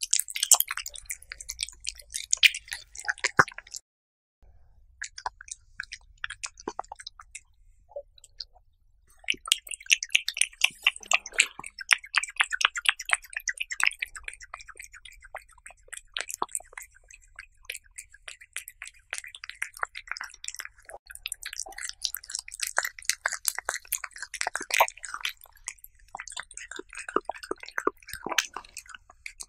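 A cat chewing raw beef close to the microphone: quick, wet, clicking bites and smacks. There is a brief break about four seconds in, the chewing is sparse for a few seconds after it, and then it runs dense and busy again.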